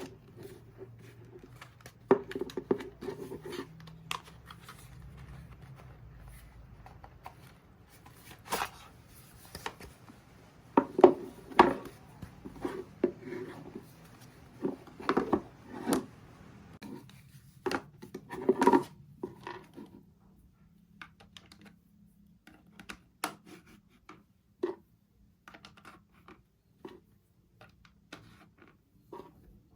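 Hands handling and unwrapping a packaged soap rack: irregular scratching, rubbing and light knocks of packaging and parts, thinning out after about twenty seconds.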